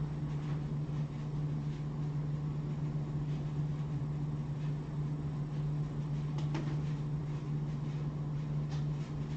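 Steady low mechanical hum, like a running fan or motor, with a couple of faint clicks in the second half.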